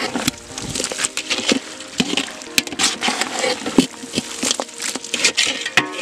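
Metal ladle scraping and knocking against a large metal cooking pot while a thick chicken fry is stirred, in irregular scrapes and clinks.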